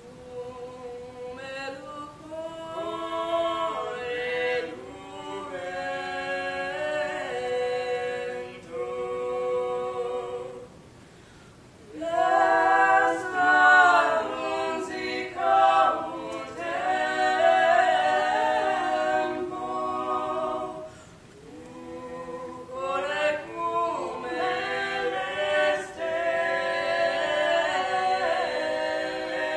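A small mixed ensemble of voices singing a cappella in several parts at once, holding chords. The song comes in three phrases, with short breaths between them about eleven and twenty-one seconds in.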